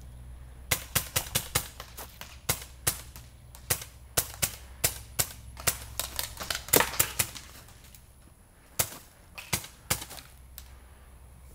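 Paintball markers firing in quick, irregular volleys of sharp pops, several shots a second. There is a pause of about a second near the end before a few last shots.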